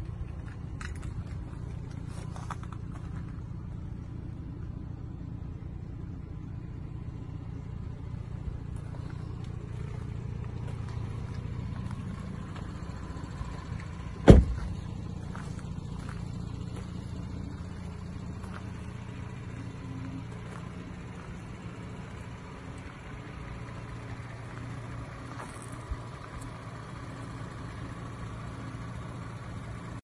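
Audi SQ5's 3.0 TFSI V6 petrol engine idling steadily, with a car door shutting once about halfway through.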